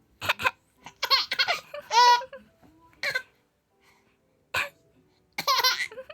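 A five-month-old baby laughing in short, high-pitched bursts in answer to an adult clearing their throat, once near the start and again about two-thirds of the way through.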